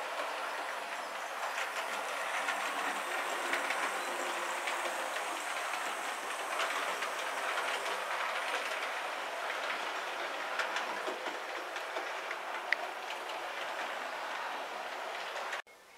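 Model train running along the track, a steady rolling rush with a patter of small clicks as the wheels pass over the rail joints, and one sharper click about three-quarters through. It cuts off abruptly near the end.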